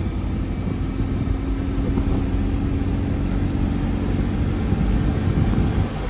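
A car driving: a steady low engine and road rumble, with a faint steady hum through the middle.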